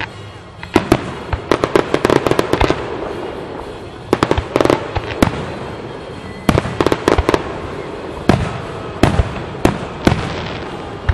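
Aerial firework shells going off in quick succession: many sharp bangs at irregular intervals, with rapid strings of reports about two seconds in and again around seven seconds in.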